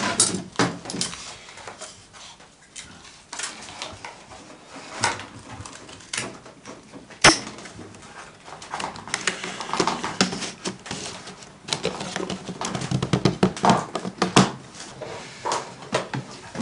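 Irregular clicks, knocks and creaks of chestnut sticks and laths being split and handled by hand, with one sharp knock about seven seconds in.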